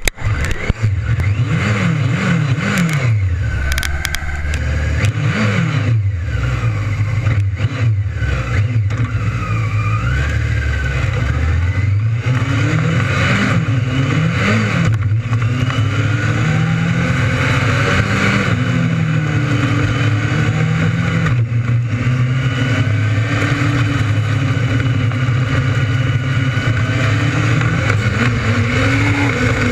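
600cc micro sprint motorcycle engines racing. The pitch rises and falls several times as they rev up and back off through the corners, then settles into a steadier, layered sound of several cars at speed.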